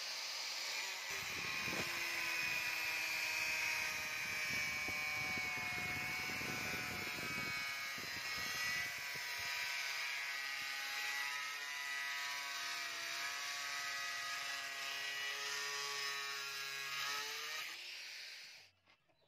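Electric angle grinder running at speed with a steady high whine, its abrasive disc grinding along the steel of a blade forged from rebar. The grinding noise is heavier in the first half, and the grinder stops near the end.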